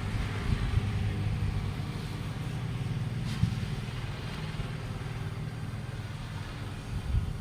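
A motor running steadily with a low hum, with one short knock about three and a half seconds in.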